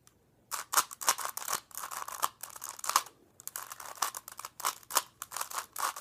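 Plastic 3x3 Rubik's Cube being turned by hand: a fast run of clicking, scraping layer turns starting about half a second in, with a brief pause about halfway through.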